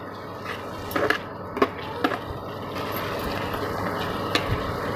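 Flat metal spatula stirring thick spiced masala in a metal pan, with a few clinks and scrapes against the pan, the loudest a little after one and a half seconds in, over a steady hiss.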